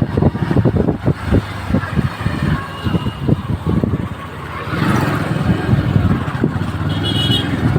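Road vehicle travelling through traffic. Heavy wind buffets the microphone in the first half, then a steady engine hum takes over, with a short, high, pulsing beep near the end.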